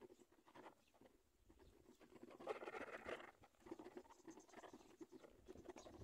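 Faint, rapid, scratchy patter from a black-winged kite's nest, swelling for about a second around the middle.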